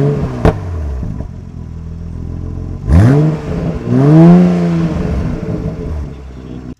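2020 Toyota Supra's engine revved in three blips, each rising in pitch and falling back to idle, with a sharp crack about half a second in. The freshly revived engine is running as it should.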